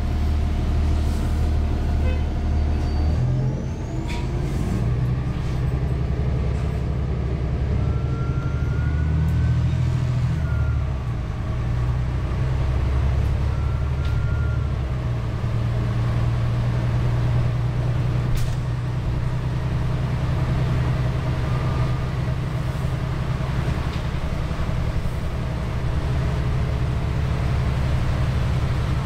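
Inside a New Flyer Xcelsior XD40 city bus underway: its Cummins ISL9 diesel engine gives a low drone that changes pitch a couple of times, then holds steady through the second half. There is one sharp click about two-thirds of the way in.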